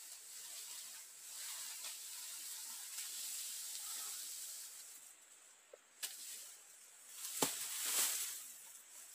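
Footsteps crunching through dry leaf litter, then a couple of sharp twig snaps and a burst of rustling near the end as a leafy frond is handled.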